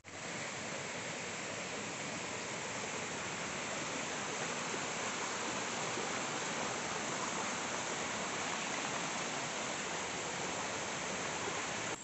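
Shallow forest stream rushing over rocks and fallen branches in small cascades: a steady rush of water.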